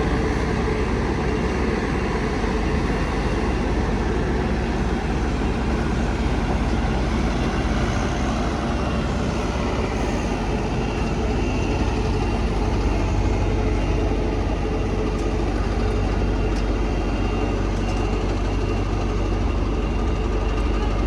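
Steady motor-vehicle noise: a continuous low engine and road rumble that holds level, with no sudden events.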